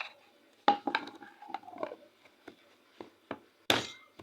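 Hard objects being handled: a series of sharp knocks and clinks, several with a brief ring, the loudest near the end.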